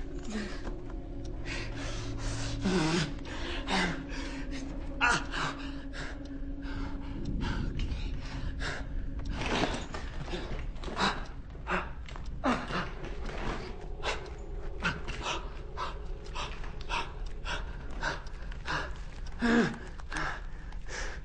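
A man panting and gasping hard in distress, in ragged irregular breaths, over a low steady hum.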